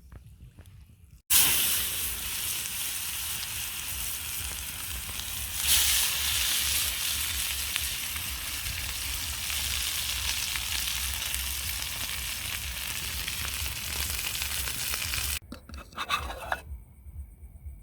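Food frying with a steady sizzle that starts suddenly about a second in, grows louder around six seconds, and cuts off abruptly a couple of seconds before the end.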